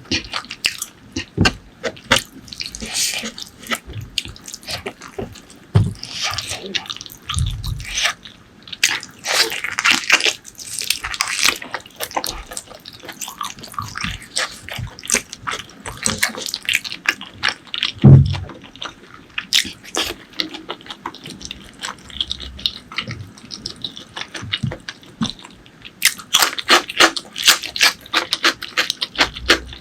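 Close-miked eating sounds of spicy pork leg curry with rice: wet chewing and lip-smacking made of many quick clicks. There is one louder low thump about two-thirds of the way through, and a busy run of wet clicks near the end.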